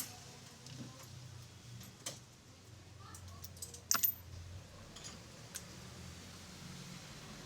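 Scattered light clicks and clinks of hand tools and metal parts being worked, a few in a few seconds, with the sharpest double click about four seconds in, over a low steady hum.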